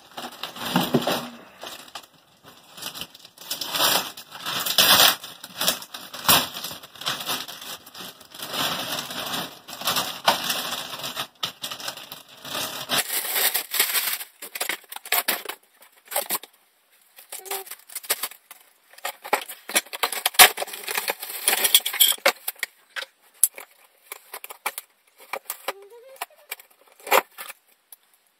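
Plastic packaging wrap crinkling and crackling as gaming-chair parts are unwrapped, with scattered knocks and clicks of the parts being handled.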